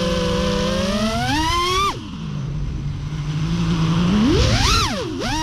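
FPV quadcopter's brushless motors whining as the throttle is worked. The pitch climbs for about two seconds and drops suddenly to a low hum, then swings up and down again near the end.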